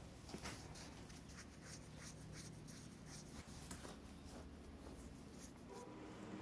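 Faint, irregular crinkling and rustling of the plastic wrap around a gaming chair's backrest as it is handled.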